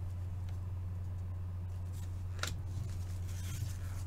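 Trading cards handled between reveals: a faint click about half a second in, a sharper click near the middle, and a soft rustle of card stock later on. A steady low hum runs underneath.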